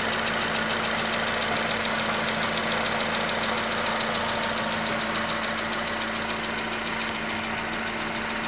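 Nissan HR16 1.6-litre four-cylinder engine idling with a fast, even knocking tick over a steady hum. The knock is still there after two engine flushes and fresh oil.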